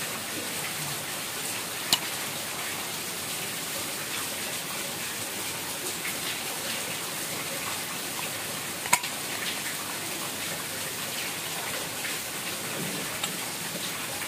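An air pistol being handled: two sharp clicks about seven seconds apart, over a steady hiss like rain.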